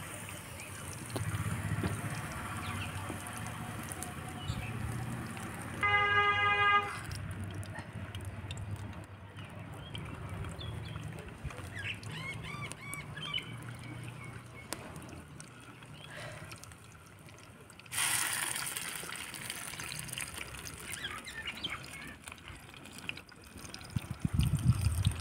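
Soya kebabs frying in hot oil in a pan over a wood fire, a steady soft sizzle. About six seconds in, a short, loud, high pitched tone sounds for about a second. Near the end there are low bumps.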